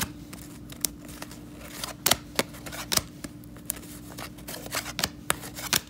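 A stack of cardboard trading cards being flipped through by hand, the card edges giving irregular sharp clicks and snaps as each card is slid off the front and tucked behind.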